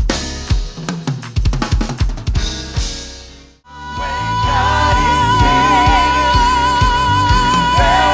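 Live drum kit playing a busy groove of kick, snare and cymbal hits that fades out about three and a half seconds in. Full gospel band music follows, with held, wavering notes and singing over a steady beat.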